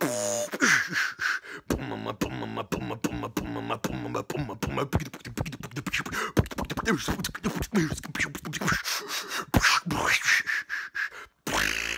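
A person's voice making rapid percussive mouth clicks and pops mixed with short sliding vocal tones, in the manner of beatboxing.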